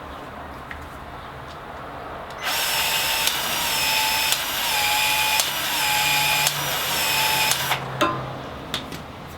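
Milwaukee battery-powered PEX expansion tool running for about five seconds, its motor whirring with a click about once a second as the head expands the end of a 1/2-inch PEX pipe and its ring in repeated strokes. A couple of sharp clicks follow as it stops.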